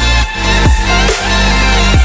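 Background music: an electronic pop track with a steady beat and deep bass.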